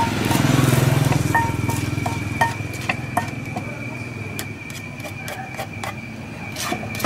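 A wooden pestle pounds green papaya salad in a clay mortar: irregular knocks, one or two a second, each with a short ringing tone. A low rumble runs underneath for the first two seconds, and a steady high-pitched tone throughout.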